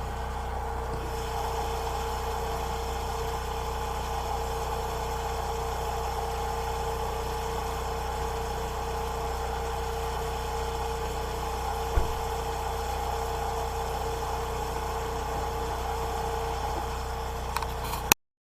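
Generator engine running steadily with a constant droning tone. One sharp knock about twelve seconds in, and a few small clicks just before the sound cuts off abruptly near the end.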